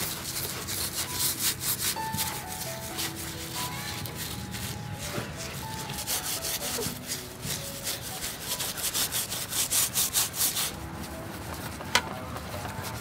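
Steel-wool scourers scrubbing the rough skin of a whole shark, a rhythmic scratchy rasp of several strokes a second that comes in runs, with a sharp click near the end.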